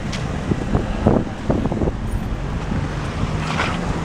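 Riding a bicycle on wet brick streets: wind buffeting the microphone over steady road rumble, with several knocks and rattles in the first two seconds and a short hiss about three and a half seconds in.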